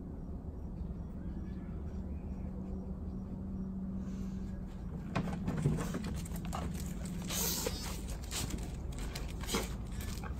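A dog's breathing over a steady low hum, with a few short sharp clicks and scuffs from about five seconds in.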